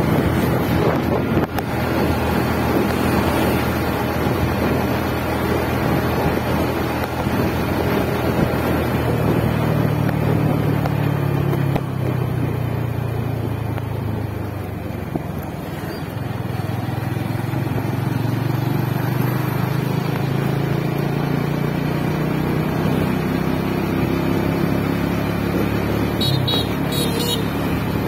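Motorcycle engine running while riding, with wind rushing over the microphone. The engine note drops a little past the middle as the bike eases off, then rises again.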